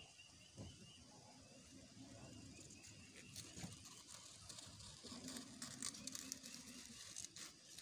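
Near silence: faint quiet outdoor ambience with a few soft scattered clicks.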